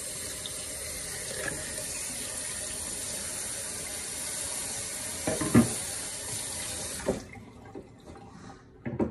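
Kitchen tap running into a stainless-steel sink as a cutting board is rinsed under the stream; the water shuts off about seven seconds in. A loud knock about five and a half seconds in, with smaller clicks later.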